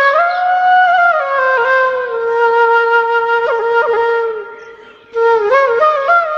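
Background music: a solo flute playing a slow melody of long held notes with small bends. The note fades out about four and a half seconds in, and a new, more ornamented phrase begins about a second later.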